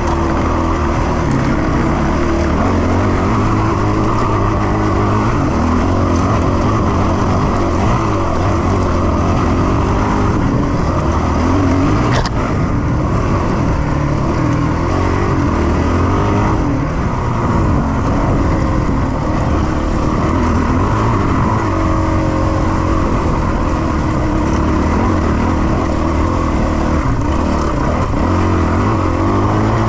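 Dirt bike engine running as it is ridden over a rocky trail, the engine note rising and falling with the throttle, with a sharp click about twelve seconds in.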